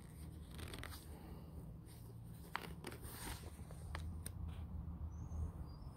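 Faint rustling and a few soft clicks from handling a paper catalog, over a low steady hum.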